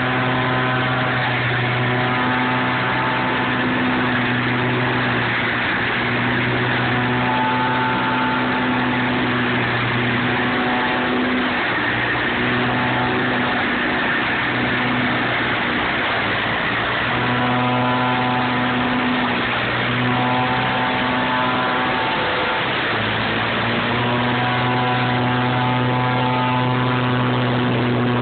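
High-power leaf vacuum running at full power: a steady engine hum over the rush of air and dry leaves being sucked through its wide flexible hose. For several seconds midway the hum fades under a louder rushing noise.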